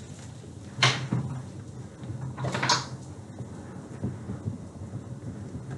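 Thin plastic shopping bag rustling and crinkling as it is handled, in two short bursts: about a second in and again around the middle.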